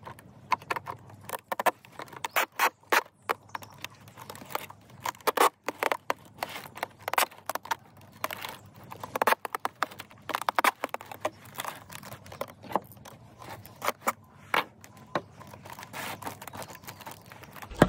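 Adhesive tape being pulled off its roll and wrapped around the cut seam of a large plastic water bottle, with irregular crackles and snaps throughout and the thin plastic crinkling under the hands.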